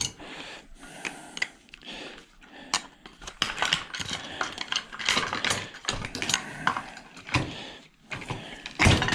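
Irregular clicks, knocks and rattling of metal and plastic parts being handled and pulled apart as an ice maker is dismantled by hand.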